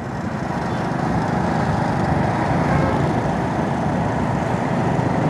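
Honda CD-70 motorcycle's small single-cylinder four-stroke engine running under way, mixed with road and wind noise. It grows louder over the first second or so, then holds steady.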